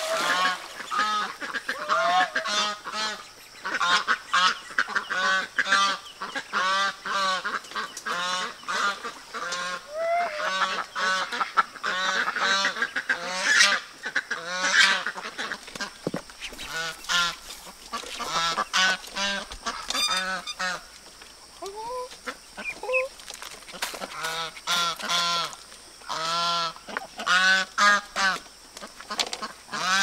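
Domestic geese honking over and over, several calls a second, with a couple of short lulls midway, as the flock crowds in for feed.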